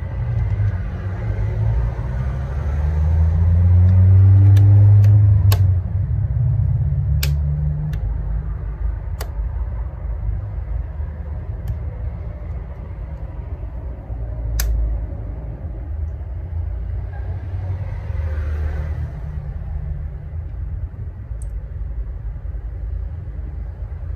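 Sharp plastic clicks of a Samsung Galaxy A14's back cover snapping onto the phone's frame as it is pressed down along the edges: several single clicks, most in the first fifteen seconds. Under them a steady low rumble runs throughout, swelling about four to five seconds in.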